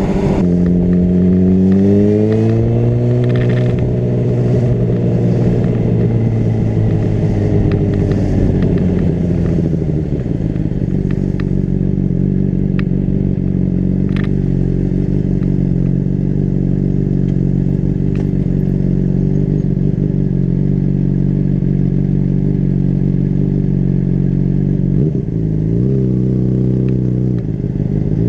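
Honda CBR600RR's inline-four engine under way: the revs dip, climb and hold for several seconds, then fall back about ten seconds in to a steady lower note. Near the end the pitch dips and recovers twice in quick succession.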